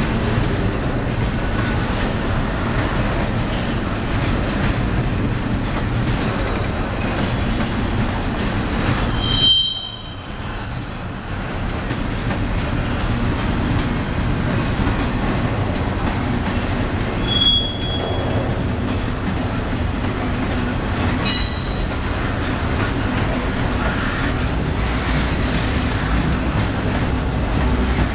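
A CSX train's cars rolling steadily past, a continuous rumble and clatter of wheels on rail. Brief high-pitched wheel squeals cut through about a third of the way in, again past halfway and about three-quarters through.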